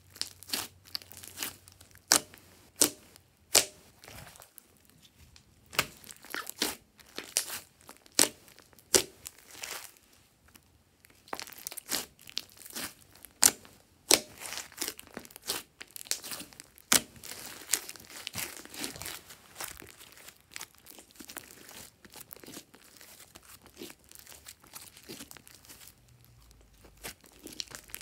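Hands kneading, squeezing and stretching a large mass of thick, bubbly slime: irregular sharp pops and sticky crackling as it is pressed and pulled apart, softer near the end.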